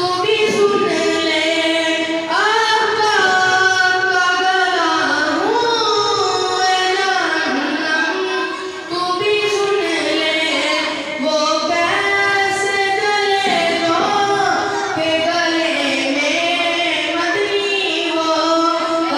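A boy's voice singing a naat, an Urdu devotional song, solo and unaccompanied into a microphone. He holds long notes that slide between pitches.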